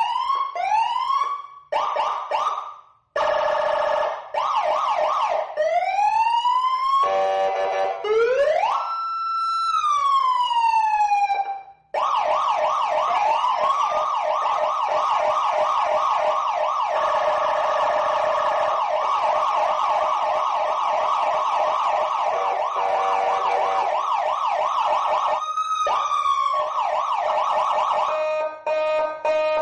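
Electronic toy siren sounds, small and speaker-like, switching between patterns: short rising whoops that stop and restart, a slow wail up and down near the middle, then a fast warbling siren that runs on, with a brief whoop about 26 s in.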